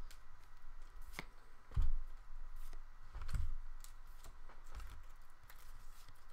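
Trading cards being handled on a table: light irregular clicks and flicks with a few soft low thumps.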